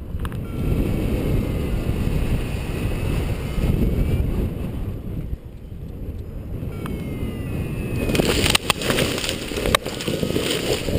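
Wind buffeting the microphone during a paraglider's final descent. About eight seconds in this gives way to rough rustling and a couple of sharp knocks as the harness hits the ground on a rough landing.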